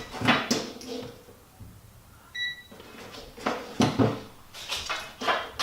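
A voltmeter gives one short electronic beep about halfway through, amid clicks and clatter of the meter and its test leads being handled.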